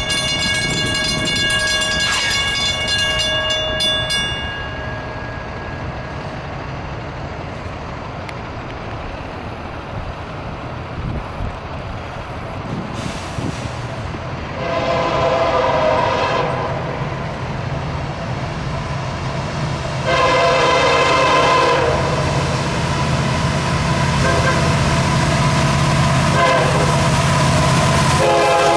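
Air horn of a Florida East Coast Railway EMD SD70M-2 diesel locomotive. A chord blast ends a few seconds in. After a quieter stretch comes the grade-crossing signal of long, long, short, long blasts, the last beginning near the end, over the locomotive's low rumble growing louder as the train nears.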